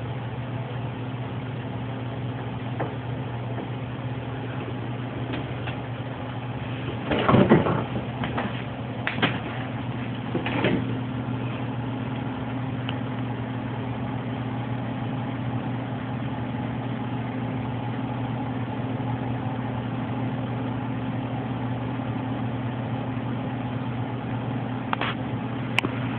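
A steady low hum over hiss, broken about a third of the way in by a short cluster of knocks and rustles, the loudest of them the first, with one more faint knock near the end.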